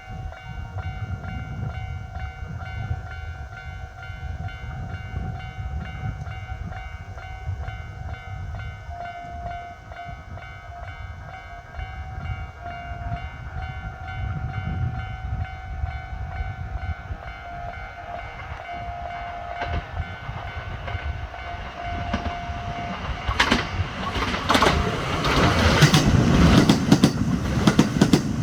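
A Japanese level crossing alarm rings steadily. About 23 seconds in, a Kintetsu 22000 series limited express train, a four-car and a two-car set coupled, comes through, wheels clattering over the rail joints. It grows loudest near the end.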